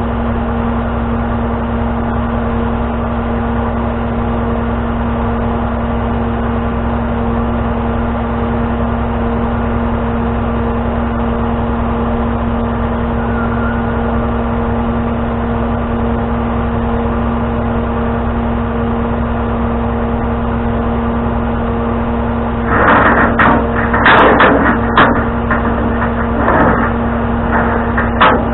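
A vehicle engine running steadily with a constant hum. From about 23 seconds in, louder irregular sounds come over it several times.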